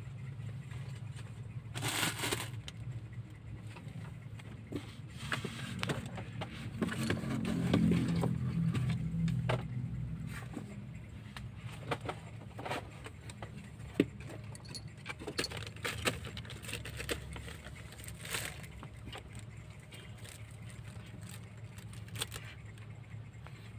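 Kittens playing on cardboard boxes: scattered light taps and scratches, with the small bell on a kitten's collar jingling now and then. A low rumble swells and fades about the middle.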